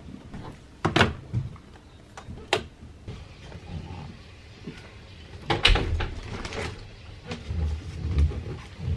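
Household handling noise: scattered sharp knocks and clatters, with the loudest cluster about five and a half seconds in, as a plastic basket of tea packets is taken down from a high closet shelf, followed by a few low thuds.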